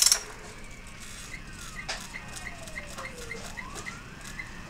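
A brief loud clatter at the very start, then a distant siren wailing: one thin tone sliding slowly down and back up. High chirps repeat about three times a second alongside it.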